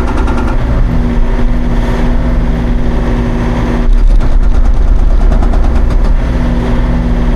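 Hauyee 35C mini excavator's diesel engine running under load while its hydraulic hammer pounds rapidly on granite, growing louder and heavier for a couple of seconds past the middle.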